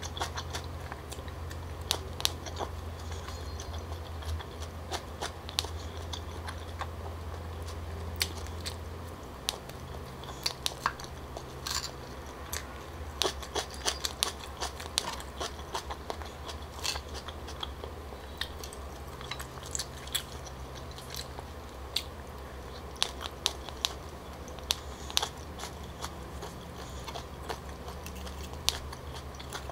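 Close-up mouth sounds of chewing and biting chewy rice cakes and squid balls, with frequent small clicks and taps. Wooden fork and spoon scrape and tap in a ceramic bowl. A steady low hum runs underneath.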